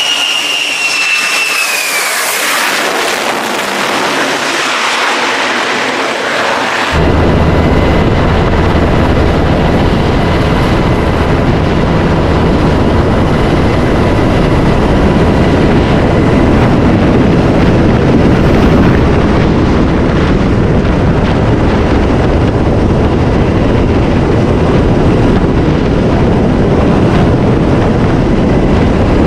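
A jet fighter flies past low with a falling jet-engine whine. About seven seconds in this gives way abruptly to the steady, close-up turbine whine and rotor noise of a helicopter descending onto a carrier deck.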